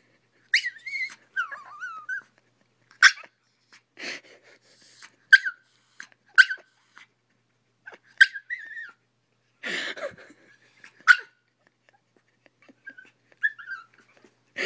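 A Pomeranian whining over a toy ball that another dog is holding: a string of about ten short, high-pitched cries, some wavering in pitch, with a couple of breathy huffs between them.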